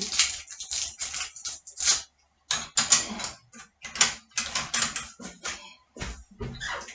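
Plates, cutlery and the dishwasher's racks clattering and clicking irregularly as the dishwasher is loaded and its racks handled. A few duller knocks near the end.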